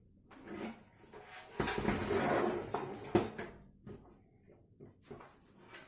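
Rustling and clattering handling noises as PC parts and packaging are moved about, with a sharp click about three seconds in.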